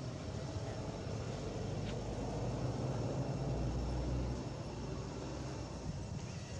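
Low steady engine rumble that swells about two seconds in and eases after about four seconds.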